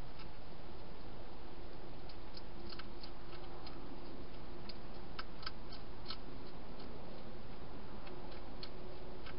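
Wild hedgehog crunching dry food: irregular small sharp clicks over a steady hiss.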